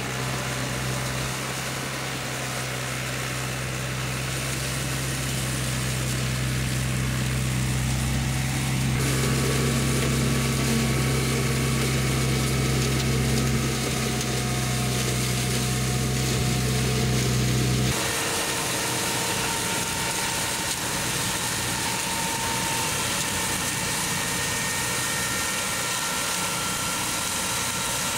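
Tractors running PTO-driven flail mowers through long grass: a steady drone of engine and spinning rotor that changes abruptly about nine and eighteen seconds in.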